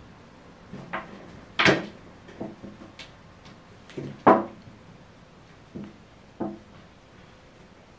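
A series of about ten short, irregular knocks and bumps, like light thuds on wood or furniture, the two loudest about a second and a half and four seconds in.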